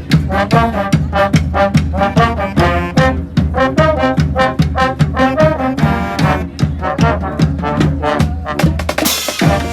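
Live brass street band playing an upbeat tune, with trombones and trumpets over a steady percussion beat. A loud splash of hissing noise comes in near the end.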